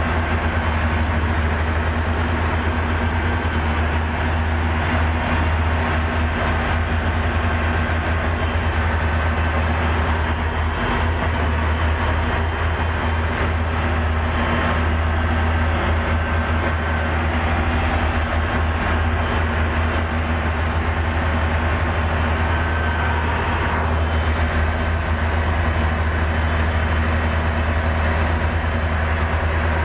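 Heavy diesel earthmoving engine running steadily at a constant pitch, with a strong low drone.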